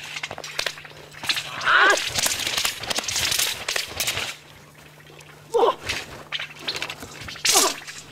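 Swishes and sharp snaps from a Shaolin broadsword (dao) form being performed, with three short sounds that drop quickly in pitch, the loudest about two seconds in.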